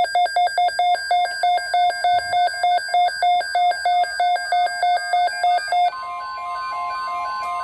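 Weather radio alert: a rapid electronic beeping, about three or four beeps a second. About six seconds in, a steady high tone near 1 kHz takes over, the NOAA Weather Radio 1050 Hz warning alarm tone, while the beeps fade out.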